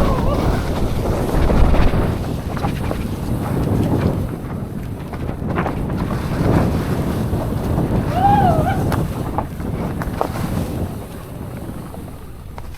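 Wind buffeting the microphone of a mountain bike descending a trail covered in fallen leaves, over a steady rumble with scattered knocks and rattles from the bike, easing off near the end.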